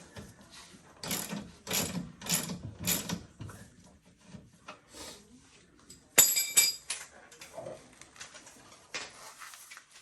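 A wrench working a 15 mm bolt loose on a utility vehicle's rear suspension: a few metallic strokes about half a second apart, then a loud, ringing metal clank about six seconds in, with scattered light clicks after it.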